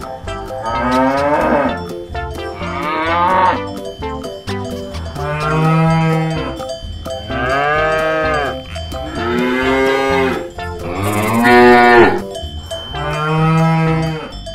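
A cow mooing about seven times in long, drawn-out calls that rise and then fall in pitch, with a cowbell clinking.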